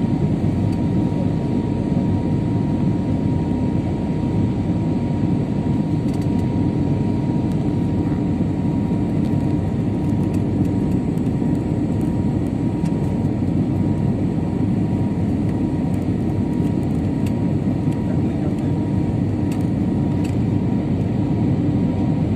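Jet airliner cabin noise during the climb after takeoff: the engines and rushing airflow make a steady deep rumble, with a thin steady high tone over it.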